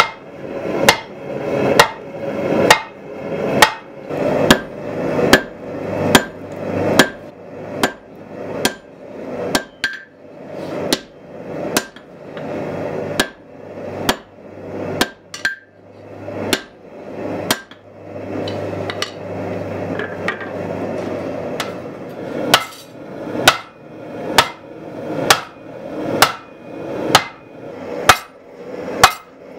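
Hand hammer striking red-hot truck-spring steel on a swage block and anvil. The blows are steady, about one to two a second, each with a short metallic ring, and they come faster near the end.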